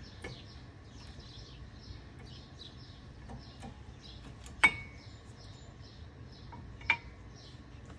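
Two sharp metallic clinks, about two seconds apart, from steel brake hardware being handled; the first is the louder and rings briefly. Small birds chirp repeatedly in the background.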